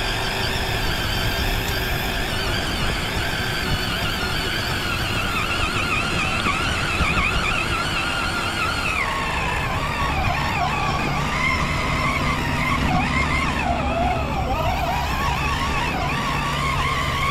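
Electric motor and gear drive of an RC4WD Bully 2 rock crawler whining as it is driven over a rocky trail. The whine wavers up and down with the throttle and drops lower about halfway through, heard close up from a camera mounted on the truck.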